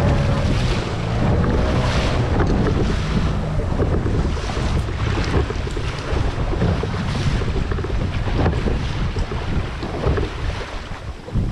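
Wind buffeting the microphone aboard a small boat at sea, over the rush and splash of water. A boat engine's hum can be heard in the first second, then fades under the wind.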